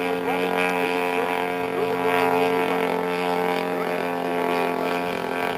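Petrol engine of a 1/3-scale RC Aeronca Champ model plane running at a steady pitch.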